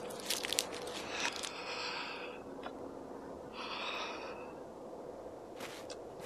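Two breathy snorts about two seconds apart, after a short run of clicks and knocks in the first second, over a faint steady hum.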